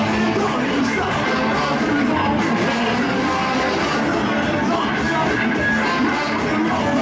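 Ska-punk band playing live and loud, with electric guitars and a trombone in the horn section.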